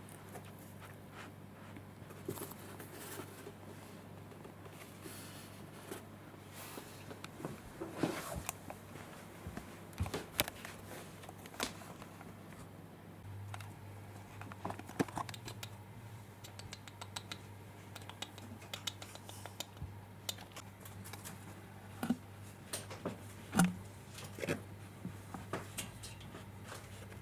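Scattered light scratching, tapping and clicking sounds, irregular and spread through the whole stretch, over a steady low hum.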